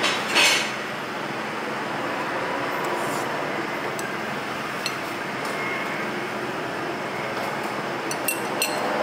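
A metal spoon and chopsticks clinking and scraping against a ceramic rice bowl, with a few sharp clinks scattered through and a brief louder scrape about half a second in, over a steady background hubbub.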